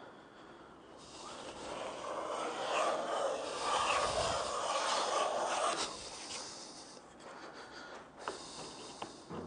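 Snipe bill moulding plane cutting along a Spanish cedar moulding: one long, hissing shaving stroke from about a second in until about six seconds, then quieter with a few light knocks.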